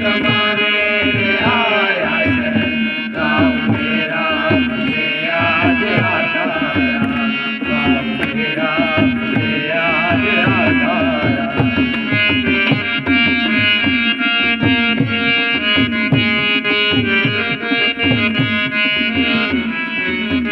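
Indian instrumental music: a melody line over steady hand-drum strokes, with no singing.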